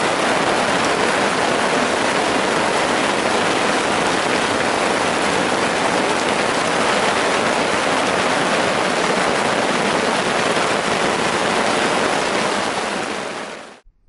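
Heavy rain pouring down steadily onto a small tarp overhead, a dense even hiss; it cuts off abruptly near the end.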